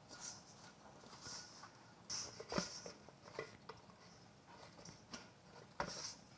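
Hand kneading crumbly glutinous rice flour dough in a stainless steel bowl: faint rubbing and scraping of dough against the metal, with a few soft knocks, the clearest about two and a half seconds in and near the end.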